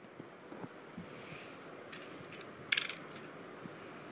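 Tablet retail box being handled and opened by hand: a few light taps, then a short, sharp scrape of packaging about three seconds in.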